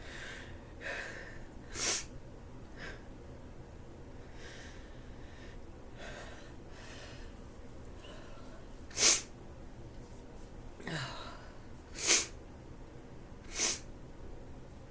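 A woman with a head cold sneezing four times, each a short, sharp burst: one about two seconds in and three close together in the second half. Breaths are drawn in before the sneezes.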